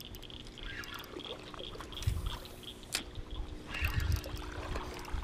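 Water trickling and splashing as a hooked fish is brought up to the boat, with a few small knocks and a sharp tap about three seconds in, over a steady faint hum.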